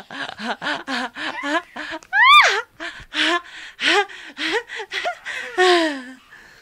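Baby laughing in a run of short giggles, several a second, with a loud high squeal that rises and falls about two seconds in, and a long falling squeal near the end.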